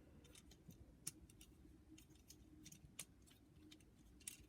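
Faint, scattered clicks of a small plastic Transformers action figure's parts being turned and folded into place, over near silence.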